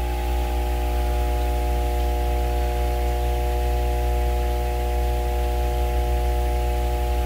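Steady electrical hum with a stack of low tones over a faint hiss.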